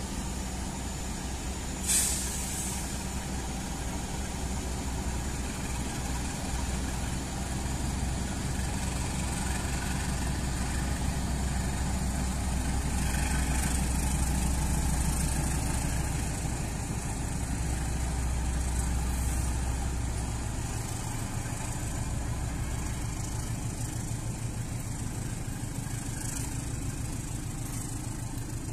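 KAI diesel-electric locomotive's engine running with a steady low drone as it hauls a passenger train slowly past, coaches rolling on the rails. There is a short sharp sound about two seconds in. The drone's lowest part fades about two-thirds of the way through as the locomotive moves off.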